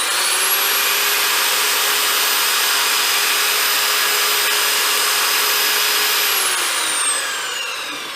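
Electric pipe threader's motor driving a tubing roller: it spins up quickly to a steady high whine with a hiss, runs for about six seconds, then winds down with falling pitch near the end as the foot pedal is let off.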